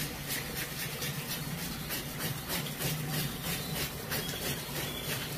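Fish scales being scraped off with a hand scaler under running tap water: rasping strokes, about three a second, over the water and a steady low hum.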